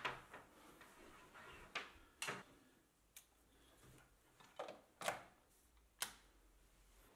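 About six light, scattered clicks and knocks as a power cable is handled and its plug pushed into a wall socket.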